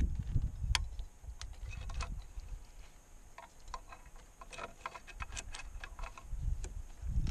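Metal climbing gear clicking and clinking: a cam and carabiners on a climber's rack tapping against each other and the granite, in scattered light ticks that bunch together about two-thirds of the way through. A low rumble sits under the start and comes back near the end.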